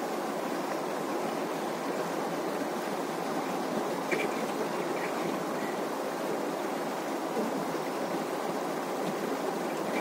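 River water rushing steadily over a small rocky cascade and around boulders.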